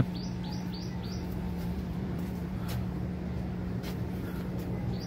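Four quick, high, falling chirps in the first second, from a small bird or animal, over a steady low hum. Two faint clicks follow around the middle.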